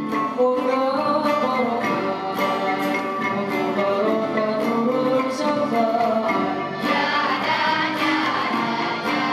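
Live Malay zapin music from a traditional ensemble: a winding melody over a steady percussion beat, growing fuller and brighter about seven seconds in.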